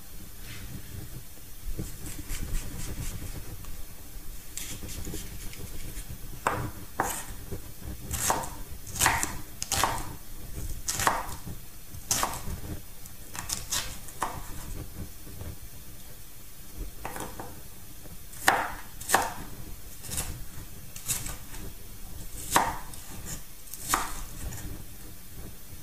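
Kitchen knife chopping an onion on a wooden chopping board: irregular sharp knocks of the blade on the wood in short runs, with a brief pause partway through.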